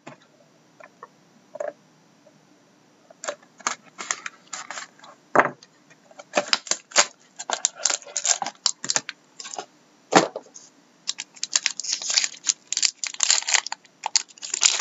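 Plastic shrink-wrap crinkling and tearing as it is peeled off a sealed trading-card box. A few light taps come first; the crackling starts about three seconds in and grows dense in the second half.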